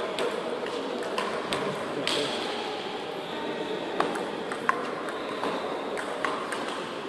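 Table tennis rally: a series of sharp clicks as the ball strikes the paddles and bounces on the table, irregularly spaced about half a second to a second apart, over a low steady murmur in the hall.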